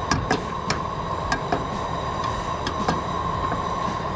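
Small boat's four-stroke outboard engine idling, a steady low rumble with a constant whine, with scattered sharp clicks and knocks over it.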